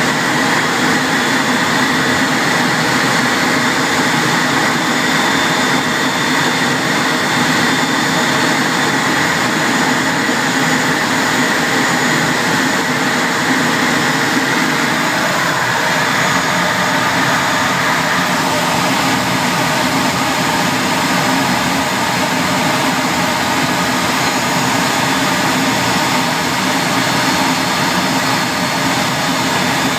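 Twin Eurojet EJ200 turbofans of a two-seat Eurofighter Typhoon running at low power as the jet rolls along the ground after landing, heard from inside the closed cockpit. The sound is a steady, loud rushing noise with a thin high whine, which fades a little past the middle.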